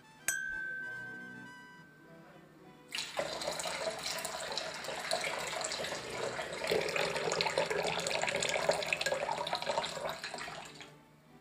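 A single ringing ding just after the start. Then, from about three seconds in, about eight seconds of liquid pouring and splashing with a steady, uneven hiss.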